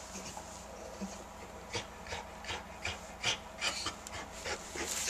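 German Shepherd bitch panting in labour while delivering her first puppy: a run of quick breaths, about two or three a second, starting a little over a second and a half in.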